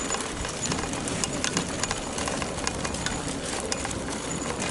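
Car suspension knocking and rattling over a rough road surface: irregular sharp clicks and knocks over steady road and tyre noise. This is the suspension noise under investigation.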